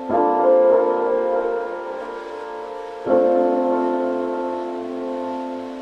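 Background piano music: sustained chords, a new chord struck about every three seconds and left to ring and fade.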